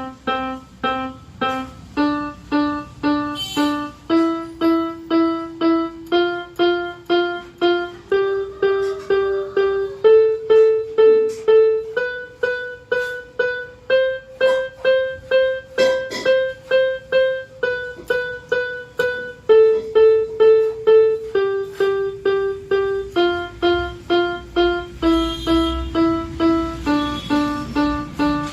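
Electronic keyboard playing a beginner's scale exercise: single notes at an even pace of about two a second, each note struck four times before stepping to the next. It climbs one octave up the scale, peaking around the middle, and comes back down.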